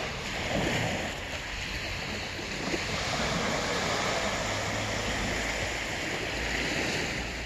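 Small waves washing onto a pebble beach, a steady hiss of surf, with a low wind rumble on the microphone.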